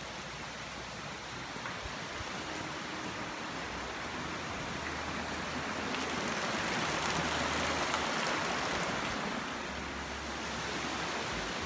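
Steady rushing water noise that swells to its loudest around the middle, then eases off slightly.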